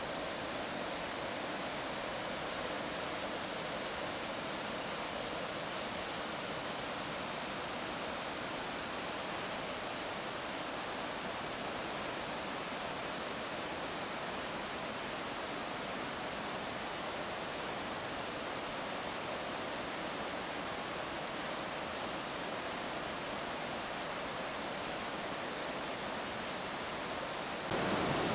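Mountain creek rushing over rocks in a steady, unbroken whitewater roar, a little louder near the end.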